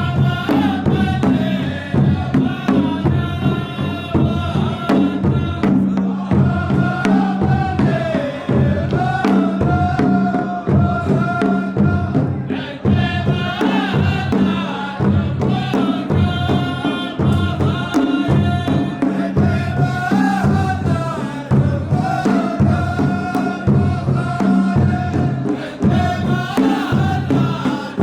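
Saudi ardah war-dance performance: a group of men chanting verses in unison, held and slowly bending, over a steady beat of large drums.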